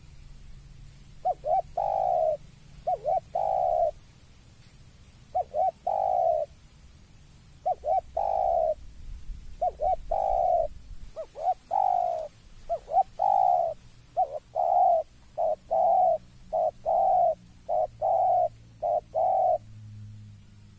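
Spotted dove (tekukur) cooing over and over, each phrase a couple of quick short notes leading into a longer falling coo, with short gaps between phrases; the call this dove gives on seeing a rival. The cooing starts about a second in and stops shortly before the end.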